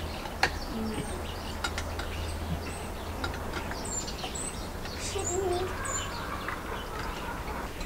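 Small birds chirping: short, high calls scattered through, over a steady low hum, with a sharp click about half a second in.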